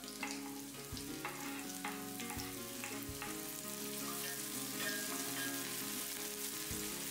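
Sliced scallion frying in hot oil in a deep pot: a steady sizzle as the aromatics are flash-fried to release their fragrance, stirred with a wooden spoon.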